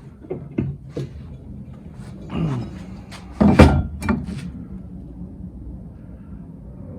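Wood and tools being handled on a workbench: a few light knocks, a short scraping groan, then one loud thunk about three and a half seconds in, followed by smaller knocks.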